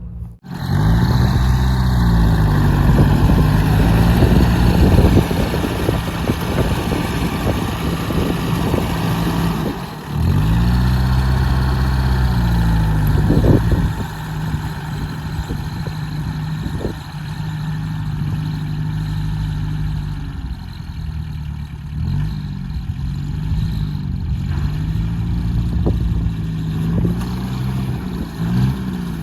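An engine running, its speed rising and falling over and over, with a short drop about ten seconds in.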